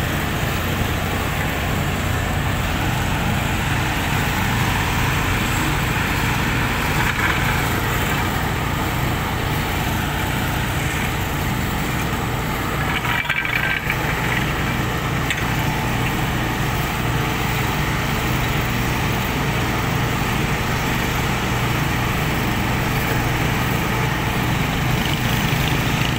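Steady, continuous drone of heavy diesel road-construction machinery: asphalt pavers and the dump truck feeding them running together. The sound dips briefly about halfway through.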